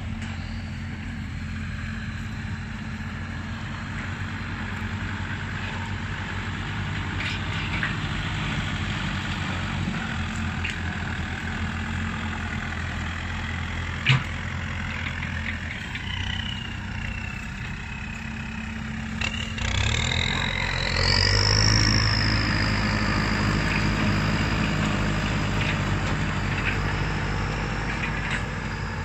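Turbocharged Kubota tractor diesel engine running steadily, then pulling harder about two-thirds of the way in, when a high turbo whistle rises and holds. There is a single sharp click near the middle.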